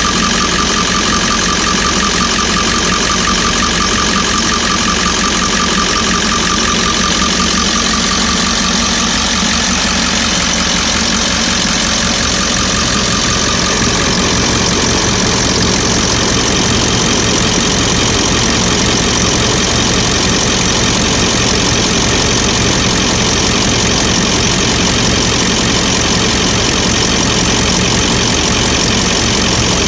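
Ford E350's 7.3-litre Power Stroke V8 turbo-diesel idling steadily, with a high whine that fades out in the first ten seconds or so. The owner is asking about a slight pop or spark-like sound that this engine makes as it warms up.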